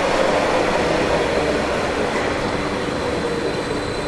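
Train running past on the tracks: a steady rumble of wheels on rail with a droning tone that slowly drops in pitch, the whole sound fading a little as it goes.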